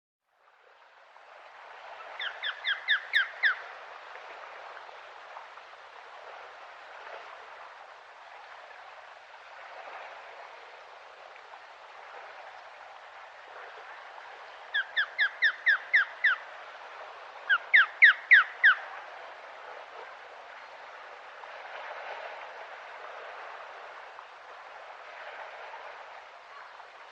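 Osprey calling: three runs of six or seven short, sharp whistled notes, one run about two seconds in and two more close together past the middle, over a steady background hiss.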